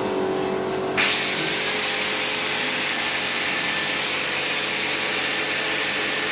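Angle grinder grinding the steel welding joint to prepare it for continuing the root pass. A steady harsh hiss that starts abruptly about a second in and holds level.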